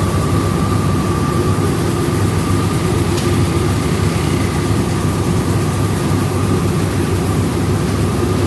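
Rice milling machinery running steadily: a loud continuous drone with a steady whine over it.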